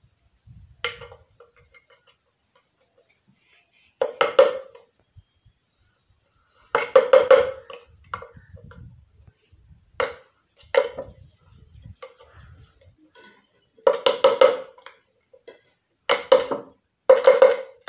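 Hammer driving a nail through a thin metal jam-jar lid on a wooden board, punching holes: clusters of a few quick metallic taps, each ringing briefly, about eight groups a second or two apart.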